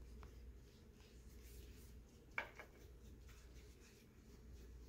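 Faint strokes of a paintbrush on watercolour paper, with one light tap about halfway through.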